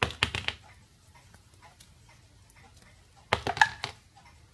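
Small ferrite transformer core halves and bobbin clicking and clinking as they are handled after being pulled apart. The clicks come in two short clusters, one at the start and another about three and a half seconds in, the second with a brief ring.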